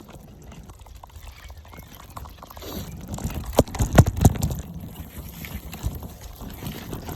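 Mountain bike rolling over a rough dirt trail: a low rumble with irregular rattling knocks. The hardest jolts come in a cluster about halfway through.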